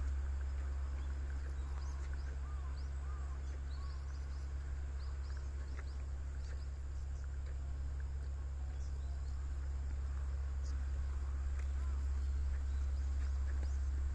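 Small birds chirping in short scattered calls and quick rising and falling notes, over a steady low hum.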